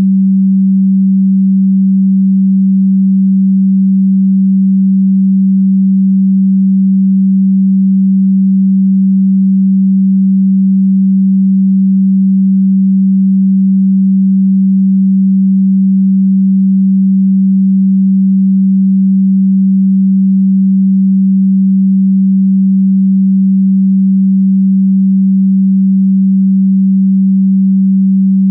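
A single electronically generated sine tone, low and steady, held with no change in pitch or loudness.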